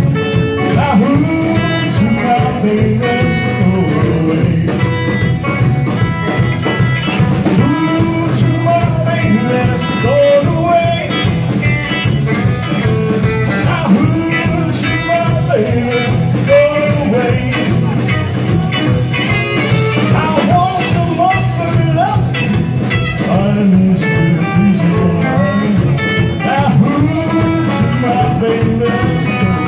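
Live rockabilly band playing a song: upright double bass, acoustic and electric guitars and drum kit, with a man singing lead vocals at the microphone.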